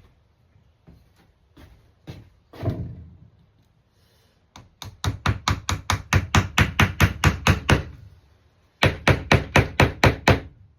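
Hammer blows driving a glued peg into a wooden jig: a few single knocks, then a fast run of about five strikes a second, a short pause, and a second run of about eight strikes.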